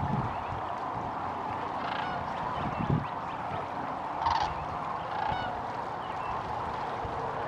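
Large flock of sandhill cranes calling: a steady chorus of many birds, with a few nearer calls standing out about two, four and five seconds in. A short low thump comes just before three seconds in.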